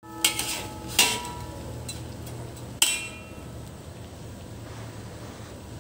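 Three sharp metallic clanks of kitchen cookware, each ringing briefly, in the first three seconds, over a steady low hum.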